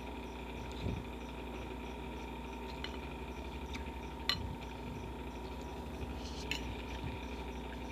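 A metal fork clinking against a ceramic bowl four times, the loudest clink a little past halfway, over a steady electric fan hum.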